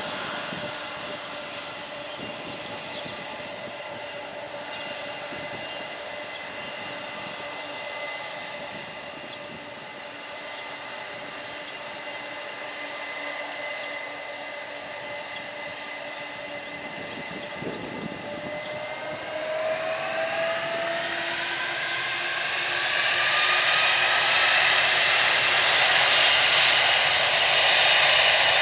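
Boeing 747 freighter's four jet engines whining steadily at low power, then spooling up about 19 seconds in with a rising whine that grows much louder as the jet starts its takeoff roll.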